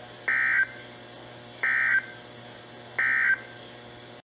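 Emergency Alert System end-of-message data bursts on NOAA Weather Radio: three short bursts of warbling digital tones about a second and a half apart, over steady radio hum and hiss. The audio cuts off abruptly near the end.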